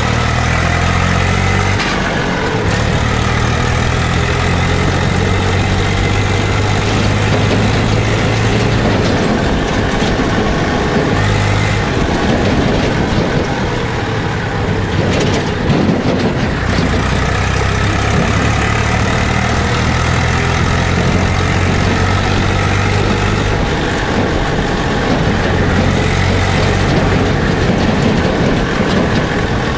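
Diesel engine of an Eicher 380 tractor running under way, heard from the driver's seat: a steady, deep engine note that dips and comes back a few times as the tractor is driven along.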